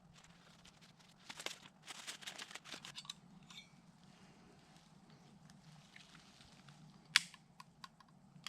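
Short bursts of rustling and crinkling handling noise, then a single sharp click about seven seconds in, over a faint steady hum.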